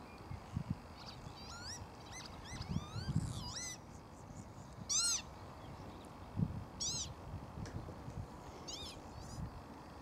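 Northern lapwings calling in flight: short, cat-like calls that slur upward in pitch. Several come close together in the first few seconds, then single louder calls about five, seven and nine seconds in, with low bumps underneath.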